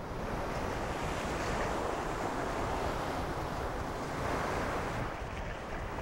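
Choppy sea water washing and sloshing against the side of a small boat, with wind buffeting the microphone.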